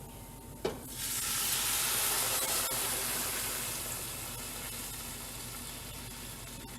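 Chicken stock poured into a hot pot of butter-cooked onions and spices, hissing and sizzling as it hits the pan. The hiss starts sharply about a second in, after a light knock, and slowly dies down.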